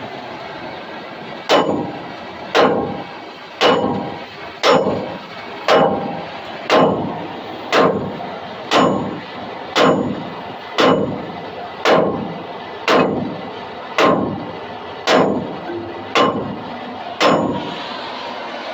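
Hammer striking steel in a steady series of sixteen ringing blows, about one a second, knocking at a seized trailer wheel bearing and hub.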